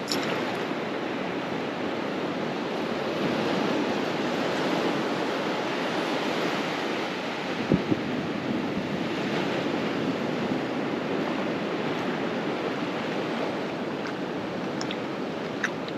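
Shallow surf washing up a flat sand beach: a steady hiss of small waves and foam. Two brief sharp knocks stand out about eight seconds in.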